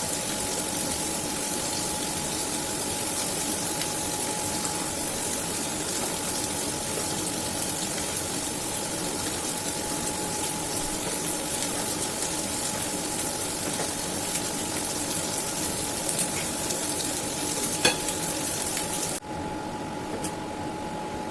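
Food frying in a pan: a steady sizzle with small crackles over a faint steady hum. About 19 seconds in, the sizzle cuts off abruptly, leaving the hum and a few light clicks.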